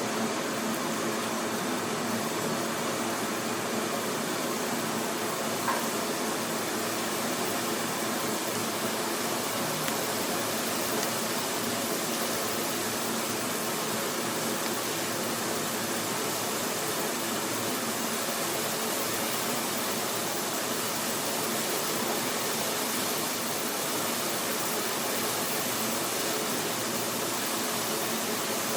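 Water boiling, a steady dense bubbling with no pauses. One small click about six seconds in.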